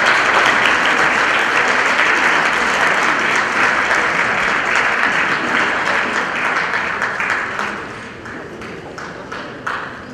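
Audience applauding, the clapping thinning out and dying away about eight seconds in.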